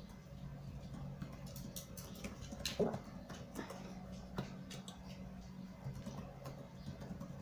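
Faint rustling and light clicks of a paper instruction booklet being handled and its pages turned, over a steady low hum, with one short louder sound a little under three seconds in.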